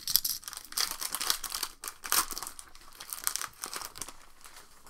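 Foil trading card pack wrapper crinkling in irregular bursts as the cards are pulled out of it, dying down near the end.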